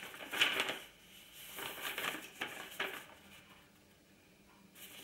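Paper rustling: a printed instruction leaflet being handled and its pages turned, in several short rustles over the first three seconds.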